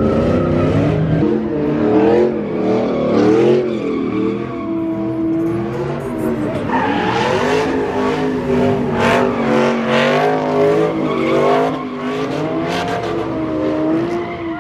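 A car spinning its tires in thick tire smoke: the engine revs rise and fall over and over while the tires squeal.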